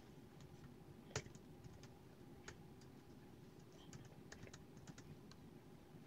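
Fingers typing on an HP laptop keyboard: faint, irregular key clicks, with one sharper tap about a second in and a quicker run of keystrokes around four to five seconds in.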